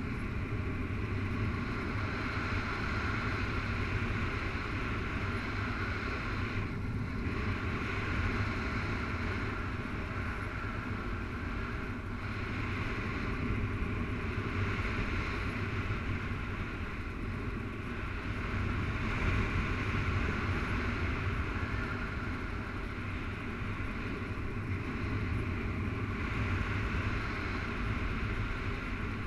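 Steady rush of wind from the airflow over a paraglider's harness-mounted camera in flight, a deep, even buffeting on the microphone.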